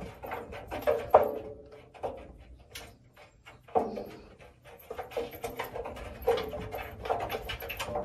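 A cat moving about inside the drum of a front-loading washing machine, with repeated knocks and clatters. Louder sounds come about a second in, near four seconds and around six to seven seconds.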